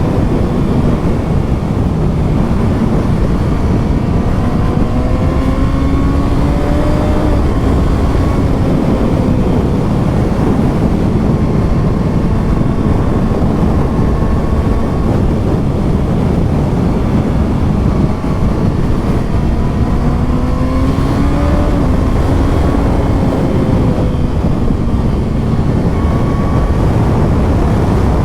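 2020 Kawasaki ZX6R's inline-four engine through its stock exhaust, revving up through the gears again and again with rising pitch, under heavy wind and road rush.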